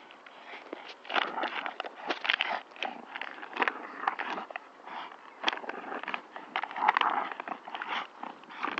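Plastic bottle crackling and crunching as dogs bite and tug at it, in quick irregular crackles.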